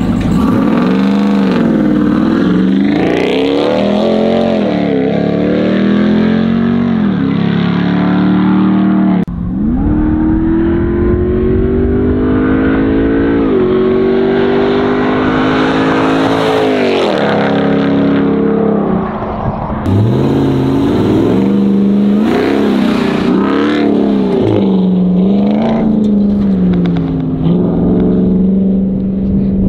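2021 Ram TRX's supercharged 6.2-litre V8 through a Corsa Extreme exhaust, accelerating hard on the road. The exhaust note climbs in pitch and drops back at each gear change, in several runs broken by two sudden cuts, and settles to a steadier note near the end.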